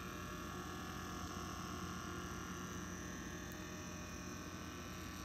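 Faint, steady mechanical hum from the small motor that drives a battery-powered animated Christmas angel figure as it moves.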